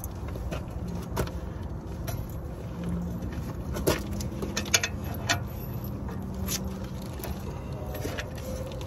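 Scattered sharp metallic clicks and clinks from a socket and extendable breaker bar on a brake caliper bracket bolt, about five over several seconds, over a steady low rumble with a faint hum through the middle.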